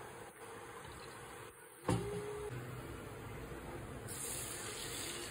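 Cooking oil poured into a pot. About two seconds in there is a sharp click and a short beep. Near the end, beaten egg poured onto the hot oil starts to sizzle with a steady hiss.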